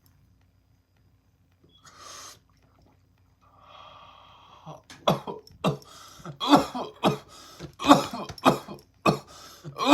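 A person breaks into a fit of hard, repeated coughing from about five seconds in, after a brief hiss. It is the coughing that follows a long 'blinker' hit from a vape pen.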